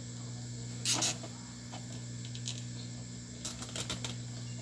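Light clicks and scrapes from a wire and circuit board being handled: a louder double click about a second in, and a cluster of small ticks near the end, over a steady low hum.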